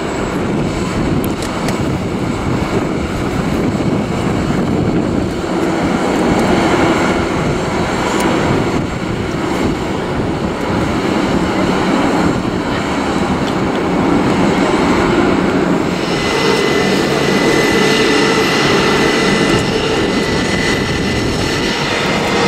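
Airbus A320 jet engines running at idle, a steady rushing noise. About two-thirds of the way in, a steady high whine joins it as the airliner taxis.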